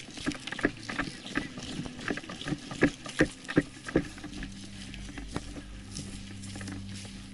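Footsteps crunching through dry leaves, twigs and brush, with irregular cracks and snaps and four heavier steps in a row about three seconds in. A steady low hum comes in after about four seconds.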